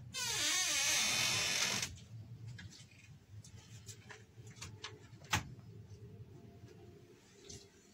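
A loud hissing whoosh with a swirling, sweeping quality that cuts off about two seconds in. Then a quiet room with scattered small clicks and knocks of objects being handled, one sharper click about five seconds in.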